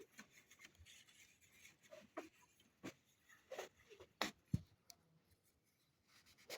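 Faint, scattered clicks and taps of hands handling the small plastic parts of an ink tank printer, against near silence.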